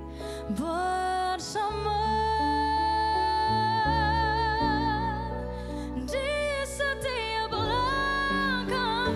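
A woman singing a slow pop ballad live into a microphone over soft instrumental accompaniment, holding a long note with vibrato for several seconds.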